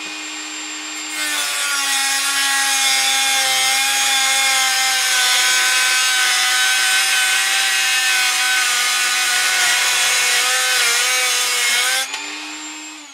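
Handheld rotary tool with a small abrasive cut-off disc, first running free with a steady high whine, then grinding through a steel M5 bolt held in a vise from about a second in: a loud, harsh cutting noise for some ten seconds as the bolt is shortened. Near the end the disc comes free, the plain whine returns, and the motor winds down and stops.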